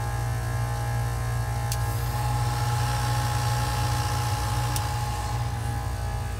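Copeland Digital Scroll compressor running with a steady hum. About two seconds in, its unloading solenoid clicks and the compressor sound changes as the top scroll lifts off and stops compressing. A second click follows about three seconds later as it reloads, the quick unload and reload of a compressor running almost fully loaded.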